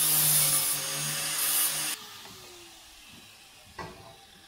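Corded angle grinder running at speed, then switched off about two seconds in, its pitch falling as the disc spins down. A single light knock follows near the end.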